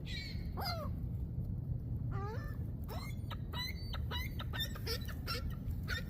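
Seagulls calling: falling, gliding cries, then a quick run of short repeated calls in the second half, over a steady low rumble.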